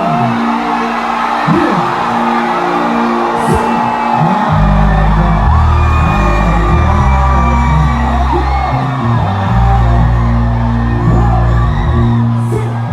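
Live concert music over a festival sound system, with a heavy bass line kicking in about four and a half seconds in and dropping out briefly near the end. Crowd whoops and sung-along voices ride over it.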